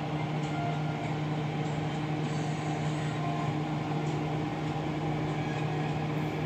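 Steady machine hum: an unchanging low tone over an even rushing whir.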